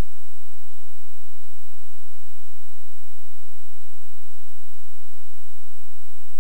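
Steady electrical hum and hiss from the sound system, with a thin high whine and no other sound standing out.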